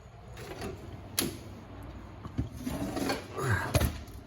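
Scattered metal clicks and scraping from a 4L60E transmission's low/reverse piston return spring and its compressor tool being worked down. The spring is going down unevenly, one side lower than the other.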